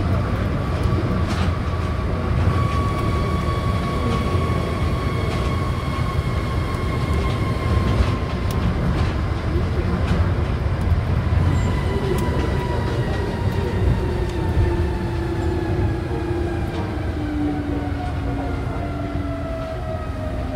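Osaka Monorail 2000-series train running, its Hitachi IGBT inverter and traction motors whining in several tones that fall steadily in pitch as the train slows. Under the whine is a low steady rumble of the rubber tyres on the guideway beam, with a few light knocks.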